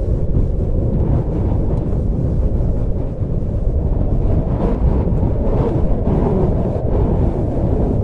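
Strong wind blowing, a steady low rushing noise with small swells, a little brighter about halfway through.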